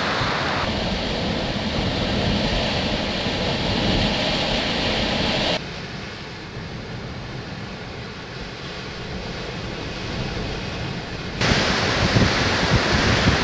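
Gale-force wind buffeting the microphone, with wind-driven waves on the water beneath it. The rush drops suddenly to a lower level about five seconds in and comes back just as suddenly near the end.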